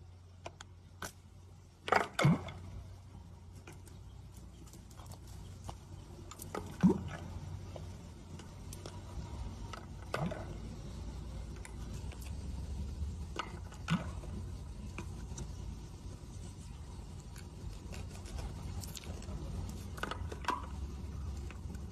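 An animal calling about five times, each call a short sweep falling steeply in pitch, with light clicks in between, over a steady low hum.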